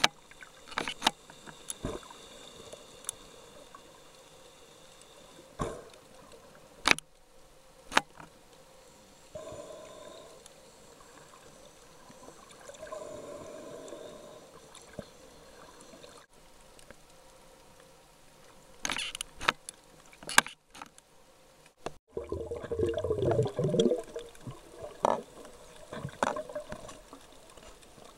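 Water sounds heard underwater through a camera's waterproof housing: scattered sharp clicks and knocks, with a louder stretch of gurgling and bubbling about 22 seconds in.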